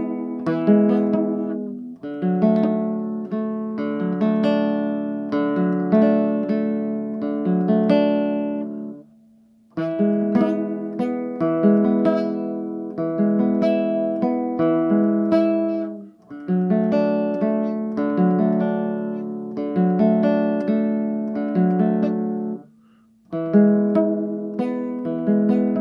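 Classical guitar played fingerstyle: quick plucked notes in repeating phrases, broken by short pauses about 9, 16 and 23 seconds in.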